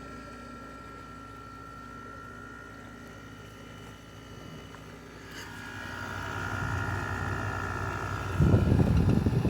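LG 6,000 BTU window air conditioner running with its compressor just kicked on: a steady hum with a thin high tone. It grows louder over the second half, and a gusty rush comes in near the end.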